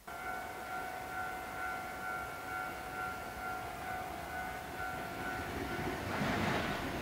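An electronic railway warning bell rings steadily with a high, slightly pulsing tone. From about six seconds in, the rumble and rattle of an approaching electric train rises and becomes the loudest sound.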